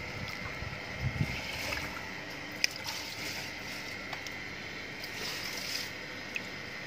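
Light water sloshing and trickling as monkeys shift in a shallow plastic pool, with a single sharp click about two and a half seconds in.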